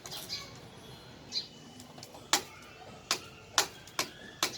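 Sharp plastic clicks and knocks of uPVC pipes being pushed into cross and tee fittings, about five in quick succession in the second half.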